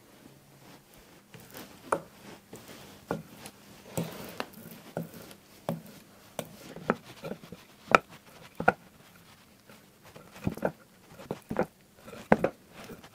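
Hardwood strips clacking against each other and on the bench as they are set into bar clamps for a cutting-board glue-up: irregular sharp wooden knocks, the loudest about two-thirds of the way through.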